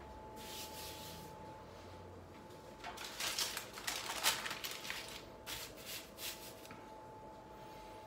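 A sheet of baking paper rustling and crinkling as it is handled and laid out on the counter, in a run of crisp bursts loudest in the middle, over a faint steady hum.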